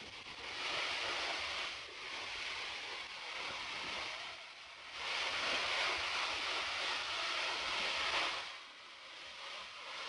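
Roar of a tall waterfall, about 80 m high, heard close to its base, with spray and wind buffeting the microphone. The noise surges louder twice: briefly about a second in, then for about three seconds past the middle.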